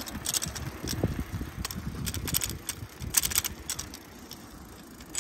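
A bicycle being ridden along a paved path: irregular rattling clicks over a low rumble of tyres and wind, easing off for the last second or so.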